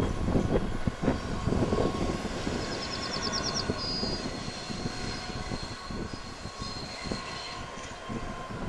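A pair of coupled diesel locomotives, led by a Class 56, runs past with a steady engine drone and a few wheel knocks in the first couple of seconds. The drone slowly fades as they move away.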